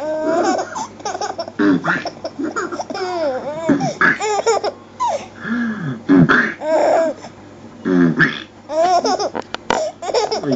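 A baby laughing and giggling in repeated bursts, with short pauses between them and a longer pause a little after seven seconds.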